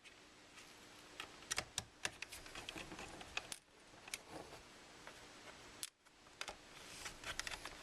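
Faint, irregular clicks and ticks of a small screwdriver driving the two keyboard-retaining screws into the underside of a Lenovo ThinkPad X220 laptop.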